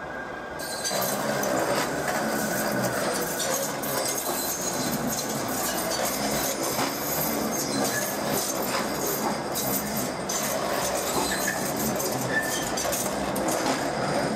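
Train moving along a station platform: a steady rumble of wheels on rails with many light clicks and clinks. It comes in suddenly under a second in.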